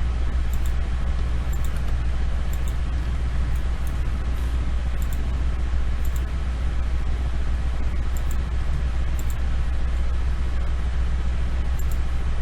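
Steady low hum with a haze of background noise, and faint clicks every second or so.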